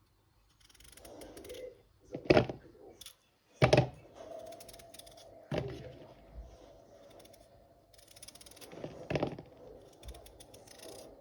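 Kitchen handling noise: a few sharp knocks and clatters, spaced a second or more apart, with quieter rustling and scraping between them.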